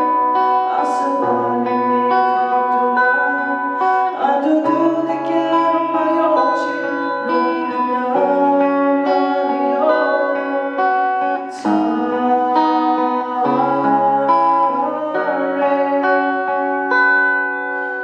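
A man singing while strumming a Yamaha acoustic guitar.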